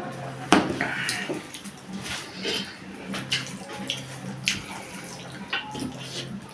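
Wet eating sounds from someone eating a meal of dal, saag and pickles: chewing and smacking with many short sharp clicks scattered through, over a faint steady hum.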